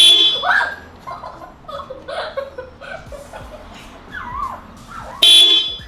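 Two short blasts of newly installed Hella Supertone dual-tone car horns, one at the start and one about five seconds later, sounded to test them after wiring.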